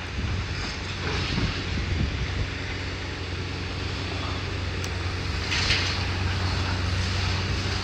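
Diesel engine of heavy demolition machinery running steadily, with bursts of bricks and rubble clattering about a second in and again later as they are piled.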